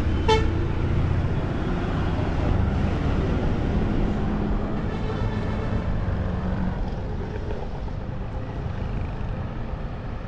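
Busy road traffic with vehicle engines running as a steady low rumble, and a short car horn toot right at the start. A brief, higher-pitched tone sounds about halfway through.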